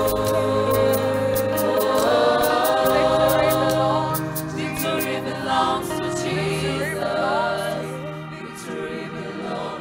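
Gospel worship choir and lead singers singing over instrumental backing, with held low notes and a steady high ticking beat; the music gets quieter near the end.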